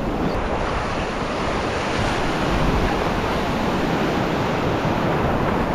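Ocean surf: waves breaking and washing over the shallows in a steady rush, with wind rumbling on the microphone.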